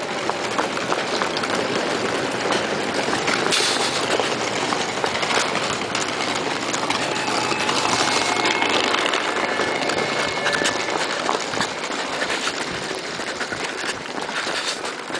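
Steady rushing noise of wind on the microphone while running along a railway platform beside a train, with faint steady tones in the middle.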